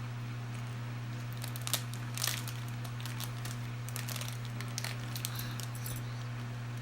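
Scattered light crinkles and clicks of a plastic blind bag being handled and snipped at with scissors, over a steady low hum.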